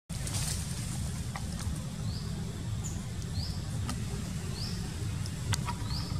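Short, high rising chirps, about five of them roughly a second apart, over a steady low rumble, with a few faint clicks.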